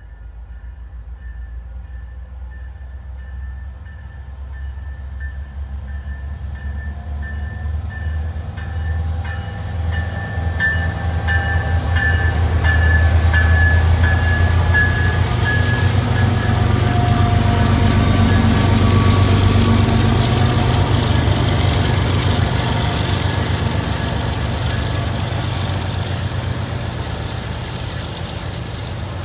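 Union Pacific freight train with six diesel locomotives, led by an SD70ACE, approaching and passing close by. The deep diesel engine rumble builds, is loudest as the lead units go by about halfway through, then eases as the trailing units pass. A thin high whine rises slowly in pitch through it.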